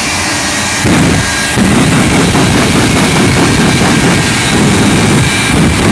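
Shockwave jet semi truck's three Westinghouse J34 turbojets running at high power with a loud, steady roar and crackle. The roar dips briefly at the start and surges back about a second in.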